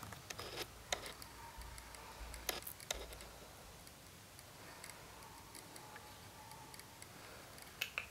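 Small puppy licking and nibbling, giving a few faint sharp mouth clicks: several in the first three seconds and a couple more near the end, with quiet in between.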